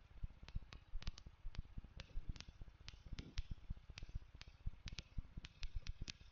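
Irregular sharp clicks and low pops, several a second, with no steady tone underneath.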